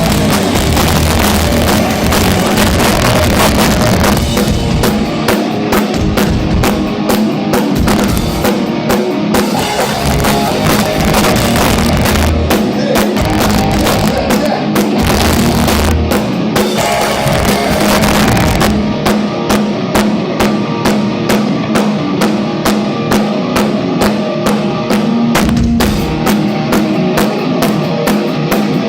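Rock band playing live on a concert stage's sound system: a full drum kit and electric guitars. About two-thirds in, the drums settle into an even beat of about three hits a second.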